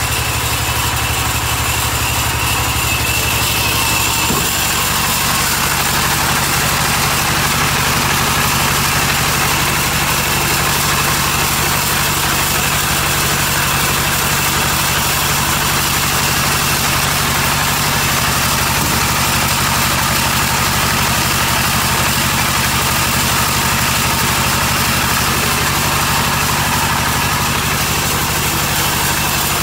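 Sawmill band saw running steadily, a continuous loud machine drone with a steady whirring hum.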